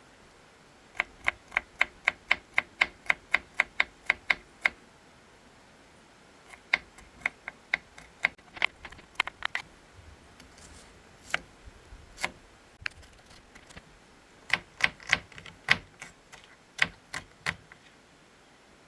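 Knife chopping on a cutting board: a steady run of quick chops, about four a second, then shorter, uneven bursts of chops.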